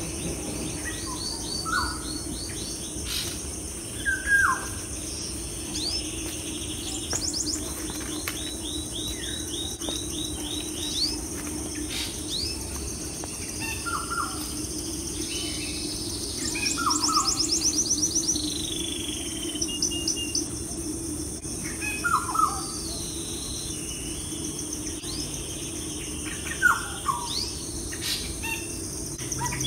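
Birds chirping and calling: short falling whistled notes, repeated chirps and quick rattling trills, with a loud fast trill a little past the middle, over a steady low hum.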